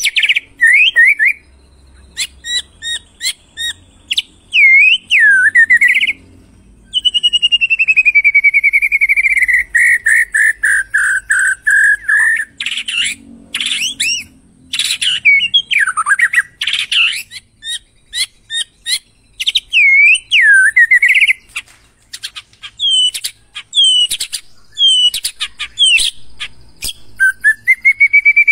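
White-rumped shama singing a loud, varied song: rich looping whistles and sharp clicking notes in quick phrases with short pauses between them, and one long trill about a quarter of the way in that slowly falls in pitch over some five seconds.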